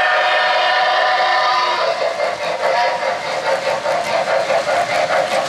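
Model steam locomotive's electronic steam whistle, a steady multi-tone chord that cuts off about two seconds in. Then O-gauge coal hopper cars roll past with a rapid rhythmic clatter of wheels on three-rail track.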